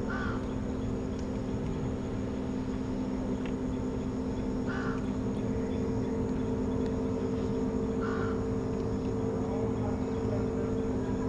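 Crows cawing: three short calls a few seconds apart over a steady low hum.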